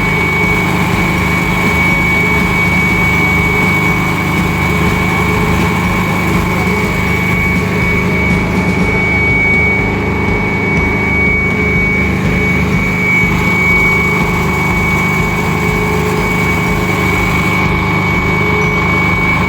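An engine runs steadily under load, with a constant high-pitched whine over a low rumble. It is typical of the concrete equipment working on a slab pour.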